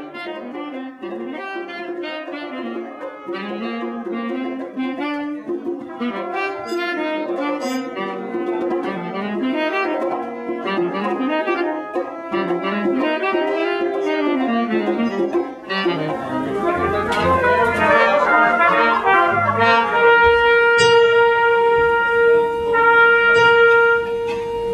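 Music led by a brass-toned wind instrument: a moving melody, then a fuller rising passage, and in the last few seconds one long held note.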